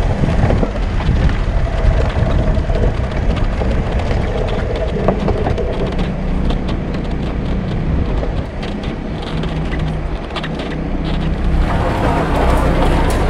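Off-road vehicle's engine running at low revs as it crawls over a rough, stony track, with many sharp clicks and cracks of stones under the tyres.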